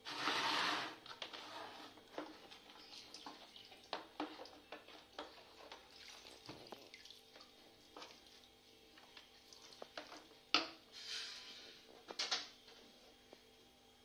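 Aquarium water trickling and splashing, with scattered small clicks and a faint steady hum from the tank's filter pump. A short rush of noise comes right at the start, and there are sharp clicks about ten and twelve seconds in.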